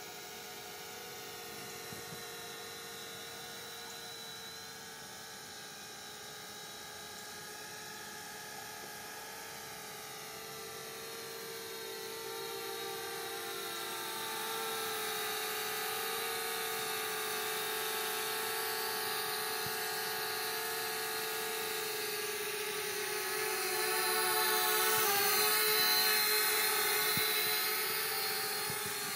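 Small foldable quadcopter (Flitt selfie drone) in flight, its propellers and motors giving a steady high buzz of several tones. It grows louder about halfway through and is loudest a few seconds before the end, where its pitch wavers as the drone manoeuvres.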